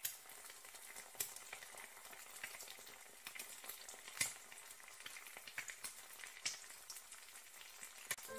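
Food frying in hot oil: a steady sizzle with scattered crackling pops, the sharpest about four seconds in.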